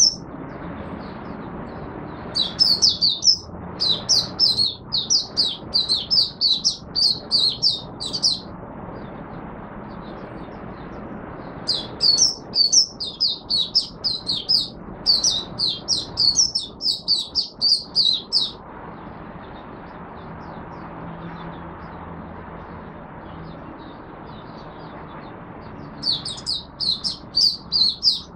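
White-eye (mata puteh) singing in long bouts of quick, high twittering notes. Two bouts of about six seconds each are separated by pauses, and a third starts near the end, over a steady background hiss.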